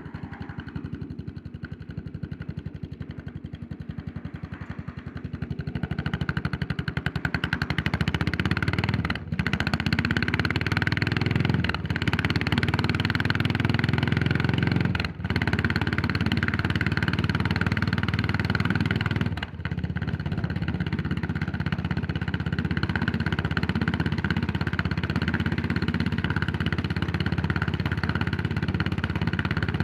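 Yamaha SR400's air-cooled single-cylinder four-stroke engine heard from the rider's seat, running slowly at first, then pulling harder and louder. Four brief drops in the sound, as the rider shifts up through the gears, lead to a steady cruise.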